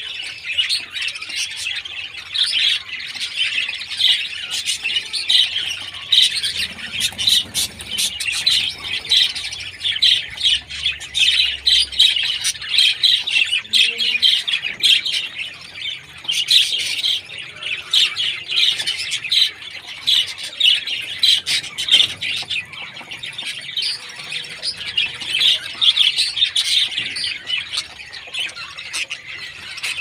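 Several budgerigars in a cage calling without pause: a dense stream of short, high chirps and chatter.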